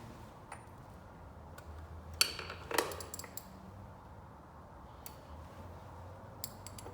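Metal hand tools clicking and clinking against each other and the engine parts, a handful of sharp separate clicks with the loudest cluster about two to three seconds in.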